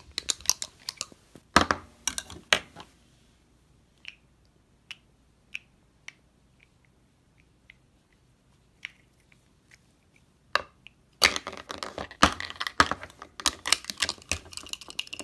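Hard plastic toy pieces clicking and clattering as they are handled, in two busy spells with a few scattered ticks between.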